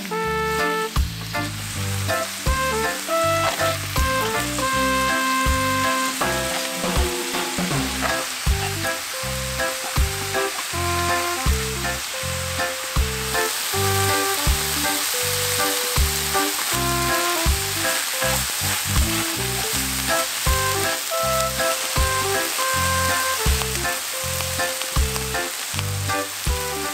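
Aged kimchi sizzling as it is stir-fried in perilla oil in a nonstick pan, stirred now and then; the sizzling grows louder about halfway through. Background music with a steady beat plays over it.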